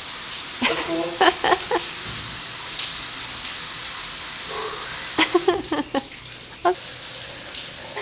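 Overhead rainforest shower spraying water, a steady hiss, with short bursts of laughter and voices about a second in and again around five to six seconds in. The spray's hiss thins briefly around six seconds in.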